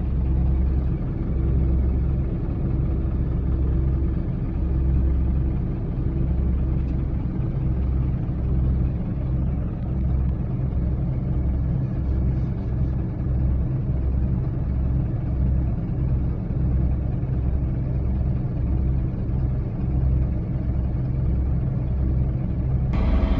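Bulldozer's diesel engine running with a steady low rumble that pulses unevenly, then an abrupt cut to a brighter, louder sound at the very end.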